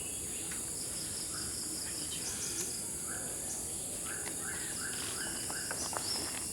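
Steady high-pitched drone of insects, with a run of about six short bird notes, evenly spaced, in the second half.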